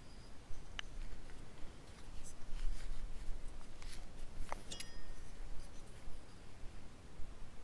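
Handling noise from a stainless-steel jaw harp and its wooden case: a few scattered light clicks and scrapes, with one brief metallic ring a little past the middle, over a low uneven rumble. The harp is not being played.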